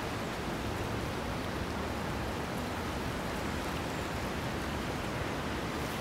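Steady rushing of flowing floodwater, an even hiss without distinct events.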